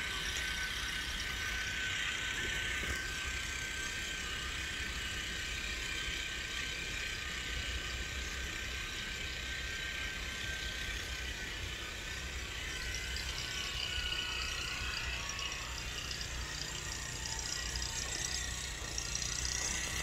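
Small engine of a walk-behind soil tiller running steadily at a distance as it works the soil.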